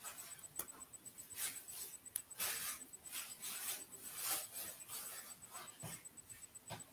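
Faint, irregular rustling and rubbing of a shirt and hands brushing against each other and the body as a person signs.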